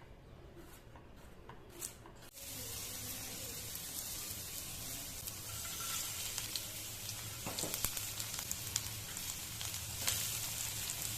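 Fried rice sizzling in a hot pan, the steady hiss starting suddenly about two seconds in, with a few short clicks on top.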